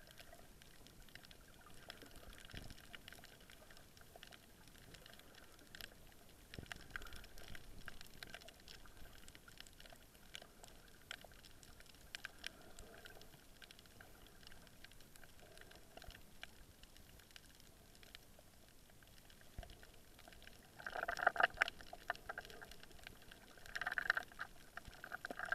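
Underwater reef ambience picked up by a camera just below the surface: a faint, steady crackle of many small clicks, with two louder bursts of noise near the end.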